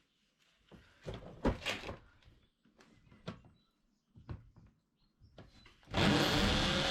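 A few scattered knocks and clatters of handling, then about six seconds in a power drill starts up loud, its motor rising in pitch and settling into a steady run as it drills into the plastic shed floor.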